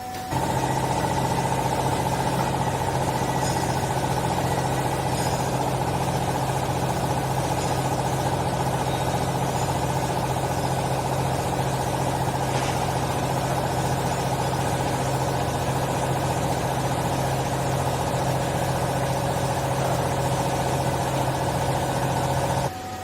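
Hydraulic textile baler running: a steady, loud hum from its motor and hydraulic pump, starting abruptly just after the beginning and cutting off suddenly near the end.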